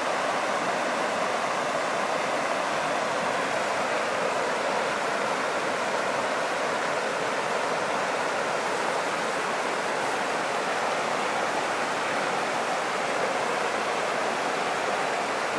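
Shallow river rushing steadily over a stony bed.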